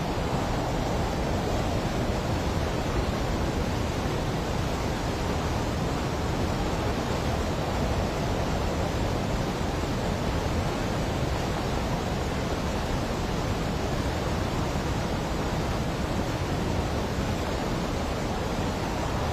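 Rushing water of a fast-flowing monsoon torrent: a loud, steady, unbroken noise.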